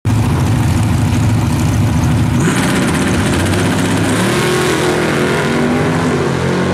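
Two drag-racing cars' engines running hard at the start line. The sound turns harsher about two and a half seconds in, then climbs in pitch as the cars launch and accelerate down the strip.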